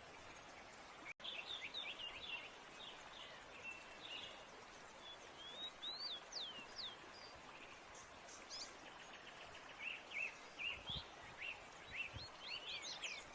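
Small birds chirping and whistling in many short, quick notes over a steady background hiss, with a brief break in the sound about a second in.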